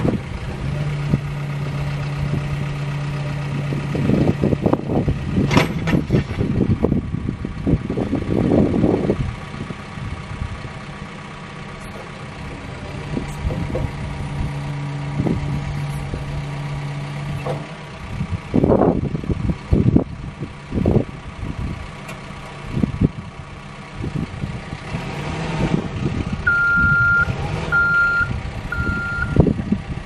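CAT 420F backhoe loader's diesel engine running while the loader arms and backhoe boom are worked, the engine and hydraulics getting louder in uneven surges under load. Three short high beeps sound near the end.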